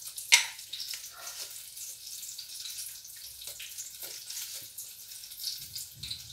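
Steady sizzle of food frying in oil, with a sharp click about a third of a second in and a few lighter clicks from a small plastic salt container being handled.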